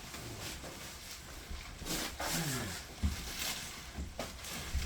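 Faint knocks and bumps from demolition work inside an old houseboat, the sharpest about three seconds in, over a low rumble, with a faint distant voice briefly about two seconds in.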